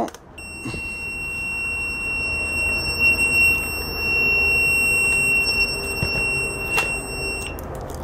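Fluke 67 multimeter's continuity beeper sounding one steady high beep for about seven seconds, then cutting off. The probes are across the plug of a working fan switched on, so the beep signals a closed circuit through its cord, switch and motor winding.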